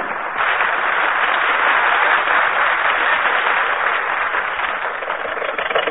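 Radio studio audience applauding, a steady, even wash of clapping, heard on an old broadcast recording with little treble.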